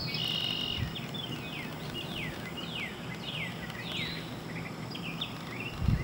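A songbird singing a series of clear downslurred whistled notes, about two a second, then a few shorter notes near the end.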